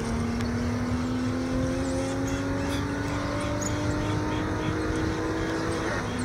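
Porsche car engine pulling under acceleration from the driver's seat, its note climbing slowly and dropping at a gear change as it begins and again near the end.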